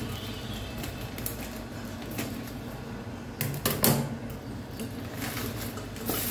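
Plastic bag crinkling and rustling as it is opened and handled in a stainless steel bowl, with scattered clicks and a couple of sharper knocks about three and a half seconds in.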